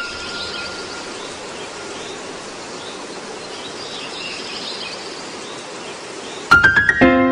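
Steady background hiss with faint high chirps. Near the end, background music starts with a quick rising run of bright chiming notes.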